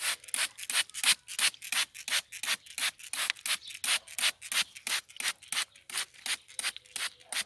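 Hand trigger spray bottle pumped over and over, about three squirts a second, each a short hiss of liquid spray onto cabbage leaves.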